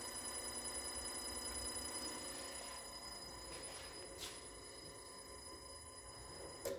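Electric motor run from a repaired Danfoss FC-102 frequency inverter, giving a steady whine of several fixed tones from the drive's switching, slowly fading. A sharp click near the end.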